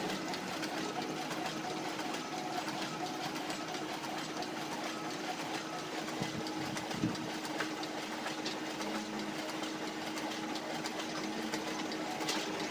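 Large office photocopier running a multi-copy job: a steady mechanical whir with a constant hum as sheets feed through and are ejected into the output tray.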